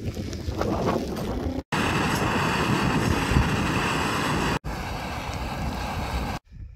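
Wind buffeting the microphone, then after a cut an MSR gas canister stove burning with a loud, steady hiss, then a slightly softer steady hiss as the water in the pot on it heats. It stops abruptly near the end.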